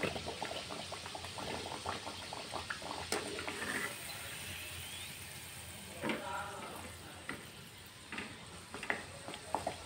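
A kachori deep-frying in hot refined oil in a steel kadhai: a steady bubbling sizzle. A slotted steel ladle turning it knocks against the pan a few times.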